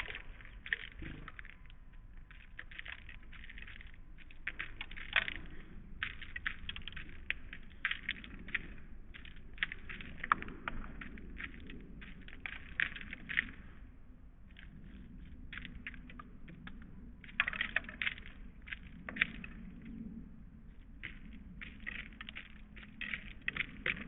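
Small birds pecking at seed on a bird feeder: irregular runs of quick, light taps and crunches, with a few short pauses.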